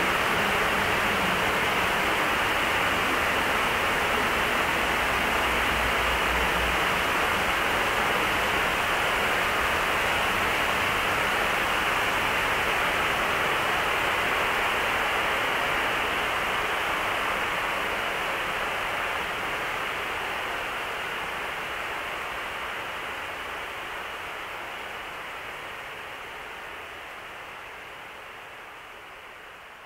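Dense static hiss closing out an atmospheric black metal track, muffled so that it sits mostly in the lower and middle range. Faint low tones sound under it in the first few seconds; it holds steady, then slowly fades out over the second half.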